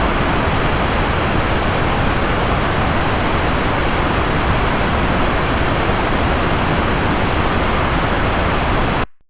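Pink noise test signal played through Audeze LCD-2 Classic planar-magnetic headphones and captured with binaural microphones: a steady, even hiss, brighter in the upper treble, that cuts off suddenly about nine seconds in.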